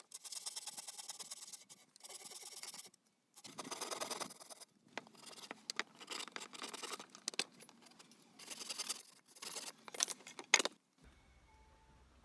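Hand tool working wood in repeated scraping strokes about a second long, with a few sharp clicks between; the strokes stop near the end.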